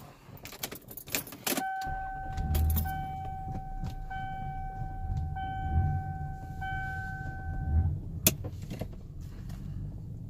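Keys jangle in the ignition, then the 1992 Lexus ES300's V6 engine starts about two seconds in and runs on at idle, with a few brief rises. Over the engine a steady high warning tone sounds for about six seconds, broken by short gaps, and a single click comes near the end.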